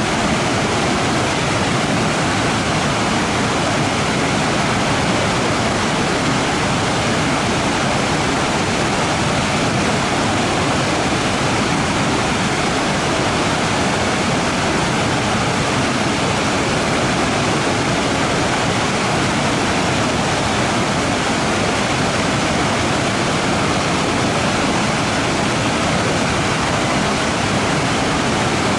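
Waterfall rushing in a steady, even roar of falling water, with no breaks or changes.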